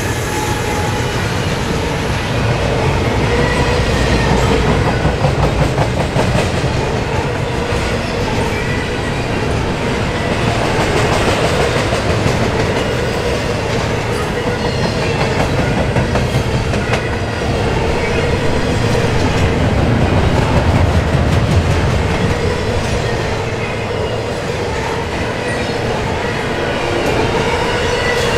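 Freight train of double-stack intermodal container well cars rolling past: a steady loud rumble of steel wheels on the rails with rhythmic clicking from the wheels and a faint steady whine.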